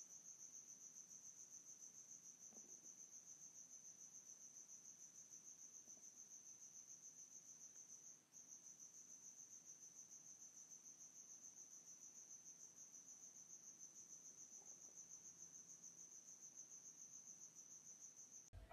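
Faint insect chirping, a steady high trill pulsing rapidly and evenly, with a brief break about eight seconds in.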